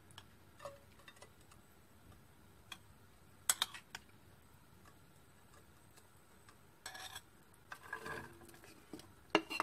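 A few sparse clicks and taps of a metal spoon against a small metal bowl and a non-stick frying pan as butter is scooped into the pan, the sharpest about three and a half seconds in. Near the end a short rustle as chopped onion slides off a board into the pan.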